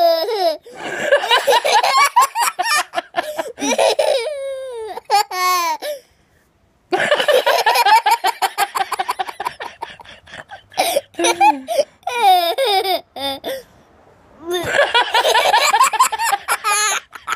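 Young boy laughing in long, rapid fits, with a break of about a second around six seconds in and a shorter lull a little before the end.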